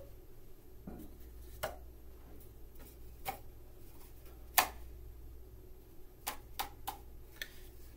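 Cardboard paper-towel-tube boomwhackers being handled and set down on a wooden table: a scattering of short, light knocks, the loudest about halfway through and several close together near the end.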